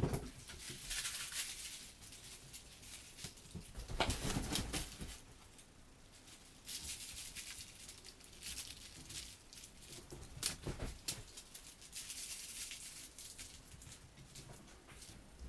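Mylar crinkle balls rustling and crinkling in irregular bursts as a cat bats and chases them across a bed, with a few dull thumps, the loudest about 4 seconds in.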